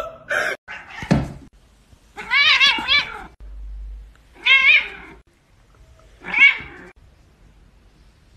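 A domestic cat meowing three times: a long wavering meow about two seconds in, then two shorter meows about a second and a half apart.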